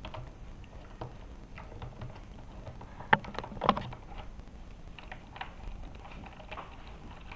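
Small clicks and taps from hands working on an electric skateboard's hub-wheel fittings, handling plastic cable connectors and screws, with two sharper clicks about three seconds in.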